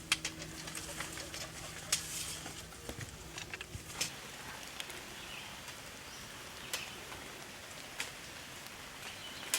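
Scattered clicks, knocks and scuffs of hikers and a dog scrambling over trail rocks, a few sharp ones standing out, with a faint low hum in the first four seconds.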